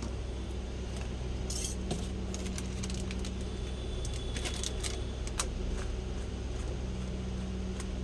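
A scatter of light clinks and taps from a spoon against a bowl while seasoning is added and mixed in, over a steady low hum.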